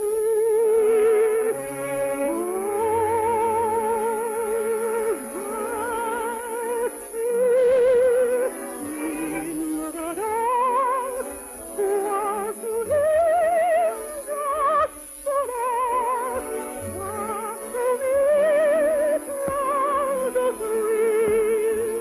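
A soprano singing an operetta song with wide vibrato, in phrases that rise and fall, over orchestral accompaniment.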